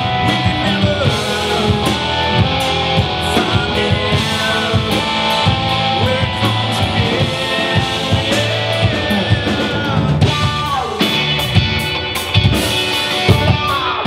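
Live rock band playing: two electric guitars, electric bass and drum kit. A melody line bends in pitch throughout, with a long downward slide about ten seconds in.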